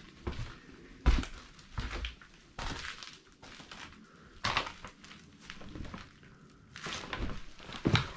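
Footsteps crunching over rubble and litter on the floor, in irregular steps, with louder crunches about a second in and near the end.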